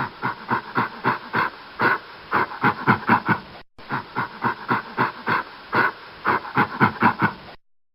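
Gorilla giving a run of rhythmic panting grunts, about three to four a second. The same run is heard twice, with a brief break just under four seconds in, and it stops abruptly near the end.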